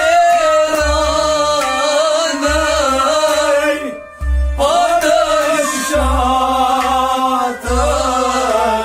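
Male voices singing a Kashmiri Sufi kalam to harmonium, rabab and tumbaknari goblet drum, with the drum beating a steady rhythm under the held harmonium notes. The singing breaks off briefly about four seconds in, then comes back in.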